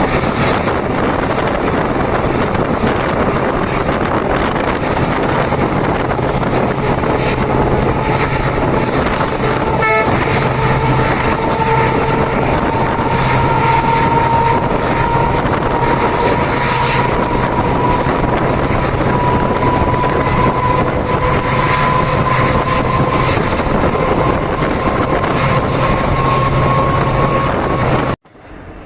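EMD WDG4 diesel locomotive running under power, with a steady low drone and a whine that climbs slowly in pitch. The sound cuts off suddenly just before the end.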